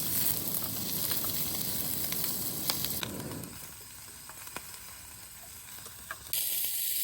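Hot food sizzling as it cooks, a steady hiss with small crackles that softens about halfway through.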